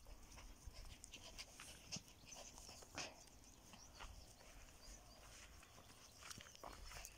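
Near silence: faint rustling and a few soft, brief ticks, one a little more distinct about three seconds in.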